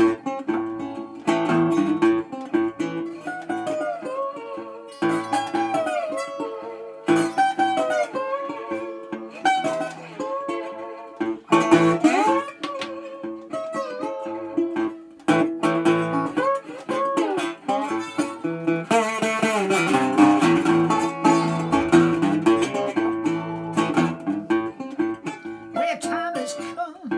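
1929 National Triolian single-cone resonator guitar played bottleneck style: fingerpicked bass and treble notes, with the slide gliding up and down into pitches in a slow country-blues instrumental passage.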